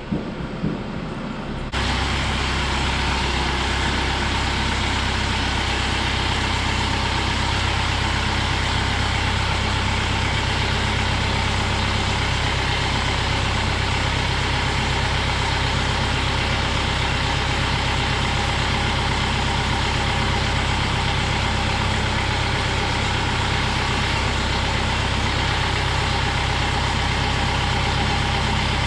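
Kubota M6060 tractor's diesel engine running steadily, a constant low drone that comes in suddenly about two seconds in.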